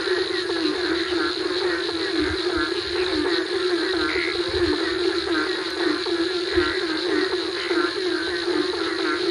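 Night chorus of frogs after rain, a dense mass of overlapping repeated calls, with crickets and other insects chirping steadily above it.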